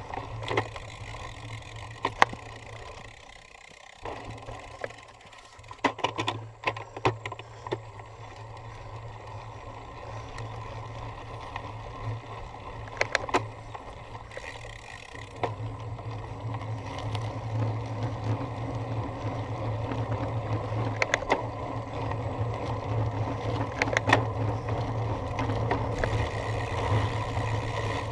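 Cyclocross bike being ridden over rough ground: steady rolling noise with scattered sharp rattles and knocks as the bike takes bumps, growing louder in the second half.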